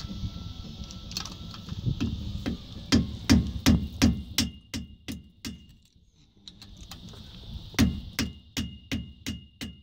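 Hammer striking a screwdriver held against the rear hub nut of a 1983 Airstream 300's P30 Chevy axle, knocking the stuck nut around to loosen it. Each strike is a sharp metallic tap with a brief ring, about three a second, with a pause of a second or two in the middle before another run of taps.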